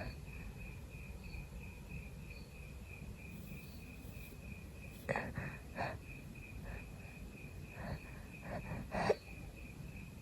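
A person with a tickly nose sniffing and taking short catching breaths, the loudest near the end a small stifled sneeze. A faint high chirp repeats about three times a second behind them.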